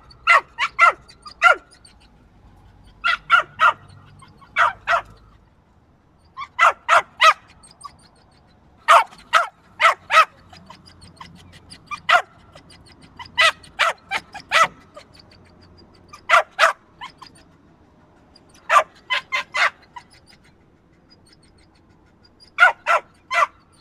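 A dog barking in clusters of one to five short, sharp barks, with pauses of a second or two between clusters.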